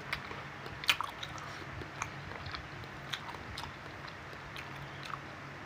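Close-up chewing of cilok, chewy tapioca-flour balls in sauce, with short wet mouth clicks and smacks scattered through; the sharpest comes about a second in.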